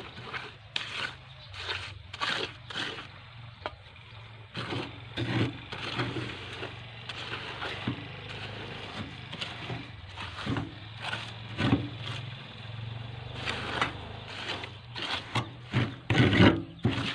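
Steel trowel scraping and patting wet concrete in repeated, irregular strokes as the mix is spread and smoothed, over a low steady hum.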